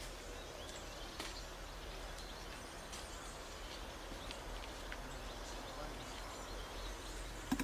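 Faint woodland ambience: a steady, quiet outdoor background with a few soft, scattered chirps and clicks.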